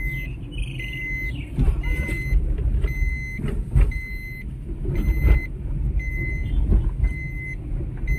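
Inside a car rolling slowly over a rough track: a low rumble with irregular knocks and jolts from the bumps, and a high warning beep repeating about once a second.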